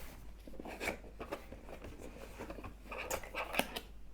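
Packaging being handled during an unboxing: irregular rustling and light clicks, with the sharpest clicks a little after three seconds in.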